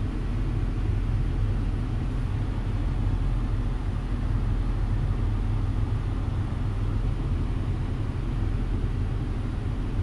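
2015 Mazda CX-5's four-cylinder engine idling steadily, heard from inside the cabin as a low, even hum.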